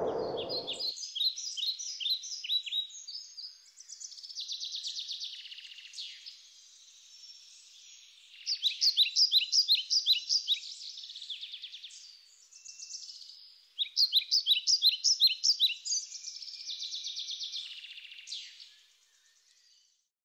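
Birds singing: runs of quick, sharp chirps, several a second, alternating with buzzy trills, fading out near the end.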